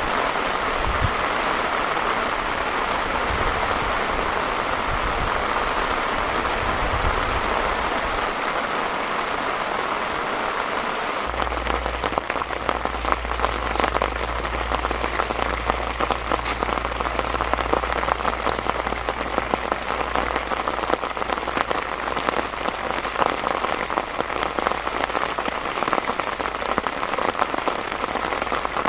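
Heavy rain falling steadily, with close drops pattering on a surface. About eleven seconds in, the drop hits become sharper and denser and a low steady rumble sets in.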